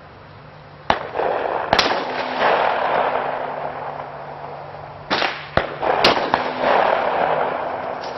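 .40 calibre pistol shots fired at body armor test panels: two sharp reports about a second in, then a quick group of three more about five seconds in, each followed by a long rolling echo.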